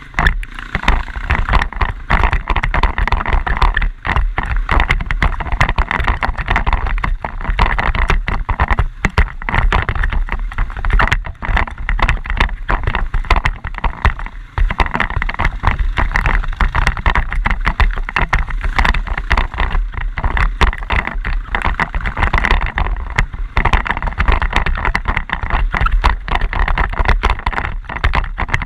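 Quad bike (ATV) being ridden: the engine runs under a heavy, ragged rush of wind and rumble on the microphone, jolting unevenly throughout.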